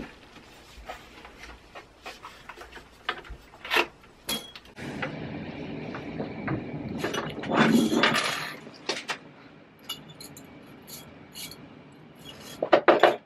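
Scattered clicks, knocks and rubbing from handling things at a sewing table. A louder stretch of steady noise builds about five seconds in and fades by nine, and a quick run of clicks comes near the end.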